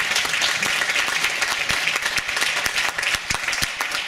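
Audience applauding: many people clapping at once, a dense steady patter of claps that thins a little towards the end.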